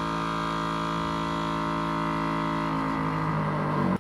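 Steady electrical hum with many overtones. About three quarters of the way through it shifts to a louder, lower tone, then cuts off suddenly.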